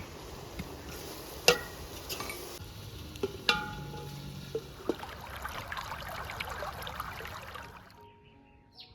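Metal utensil clinking against a cooking pot, several strikes with two louder ringing ones, over a steady sizzle of food frying; the sizzle stops near the end.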